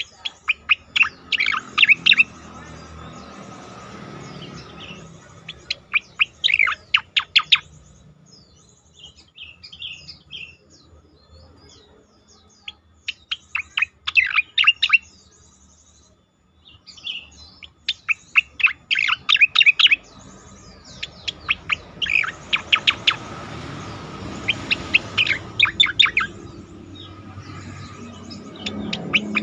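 Striated grassbird (cica koreng) singing: bursts of rapid, sharp notes, each lasting a second or two, repeated about every four to five seconds with short pauses between.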